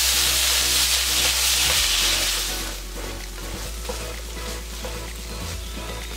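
Garlic scapes and scrambled egg sizzling in a hot oiled frying pan as oyster sauce is stir-fried in with a spatula. The sizzle is loud at first, then drops to a softer frying hiss a little under three seconds in.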